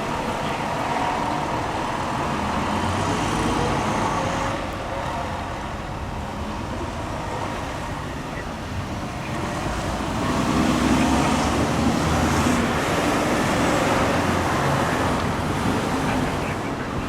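Road traffic on a city street, with vehicles passing and one louder pass about ten seconds in.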